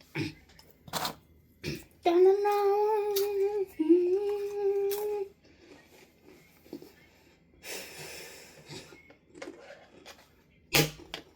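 A person humming two long, steady held notes, with a few sharp taps and a brief rustle of handling in between.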